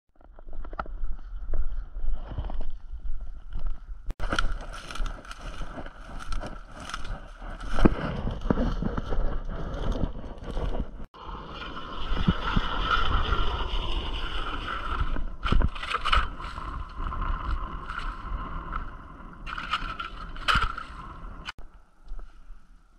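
Hand-cranked ice auger boring through sea ice, its blades grinding and scraping steadily. The sound stops abruptly and starts again about four and eleven seconds in, and cuts off about twenty-one seconds in.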